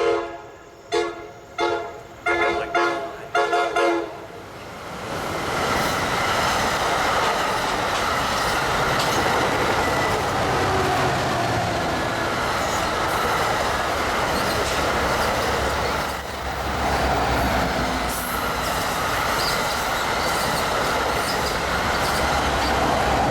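NJ Transit train horn sounding a quick series of about five short blasts, then the train passing with steady wheel-on-rail rumble and clatter.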